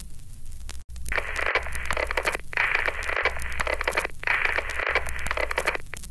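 Crackly, radio-like noise in three stretches of a second or more each, over a steady low hum, broken by several abrupt brief dropouts, as from an old recording played back.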